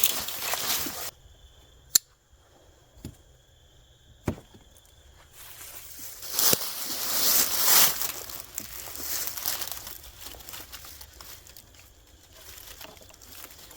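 Rustling and crinkling of straps and gear being handled to tie a deer onto an e-bike. The handling stops for a few seconds, with three sharp clicks about two, three and four seconds in, then resumes.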